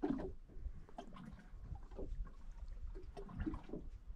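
Quiet, faint lapping of small ripples against the hull of a drifting Maverick flats boat on a flat calm sea: scattered soft ticks and little splashes over a low rumble.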